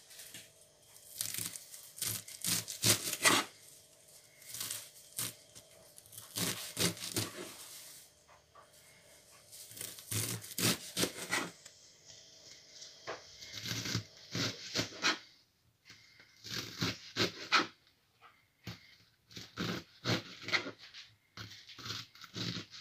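Large kitchen knife chopping a pile of amaranth leaves and stems on a plastic cutting board, in runs of quick strokes with short pauses between them.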